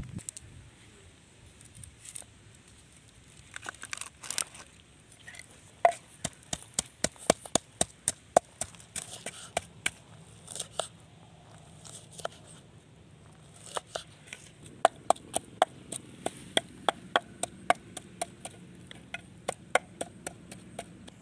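A kitchen knife cutting limes on a wooden chopping board: sharp knocks of the blade on the board, scattered at first and then in a quick run. In the last third, a wooden pestle pounding in a clay mortar, a regular knock about twice a second.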